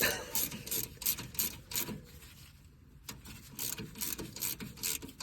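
Hand tool working the hub's threaded fasteners during reassembly of a front wheel bearing: a run of regular mechanical clicks, about three a second, with a short pause about two seconds in before the clicking resumes.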